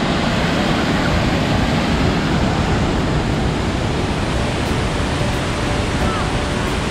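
Waterfall pouring over rock ledges: a loud, steady rush of water.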